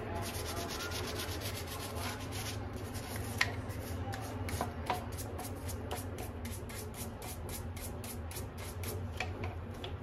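Toothbrush bristles scrubbing the soapy plastic floor head of a Mondial stick vacuum cleaner, in quick back-and-forth strokes, about three or four a second.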